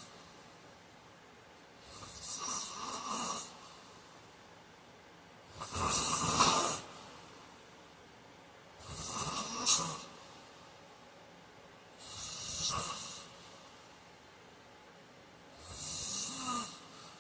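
A man snoring in his sleep: five snores, one about every three seconds, each lasting a second or so.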